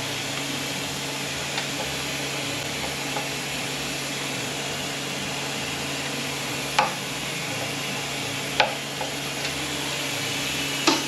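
Steady hiss with a low hum of shop background noise, with three sharp metallic clinks in the second half, about two seconds apart, from hand tools and parts being handled on an automatic transmission being taken apart.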